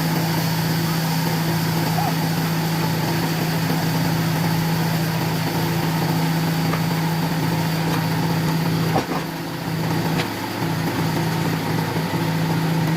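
A wood-cutting machine's motor running steadily with a constant hum, dipping briefly in level about nine seconds in.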